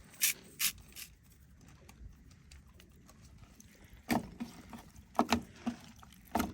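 A handful of short, sharp clicks and knocks at irregular spacing: three in the first second, a quiet stretch, then another cluster from about four seconds in.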